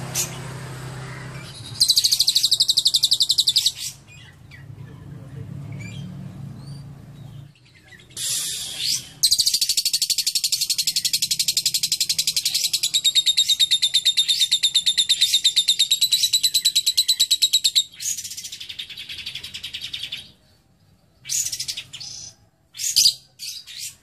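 Fischer's lovebird chattering in its long rapid trill (ngekek): a short burst about two seconds in, a long unbroken run of about eight seconds from about nine seconds in, then a few short bursts near the end.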